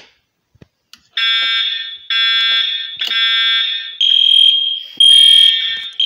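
A manual fire alarm pull station is pulled with faint clicks, and about a second later the system goes into alarm. The notification appliances sound a harsh electronic horn tone that pulses on and off about once a second, and a purer high beep comes through more strongly in the later pulses.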